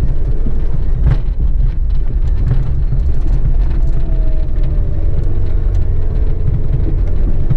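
Small Japanese 4x4 driving along a dirt and gravel track: a steady low rumble of engine and tyres, with scattered sharp clicks of stones and bumps.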